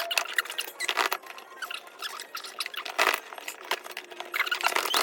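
Headphone packaging being jiggled and worked open by hand: a string of small clicks, knocks and rattles.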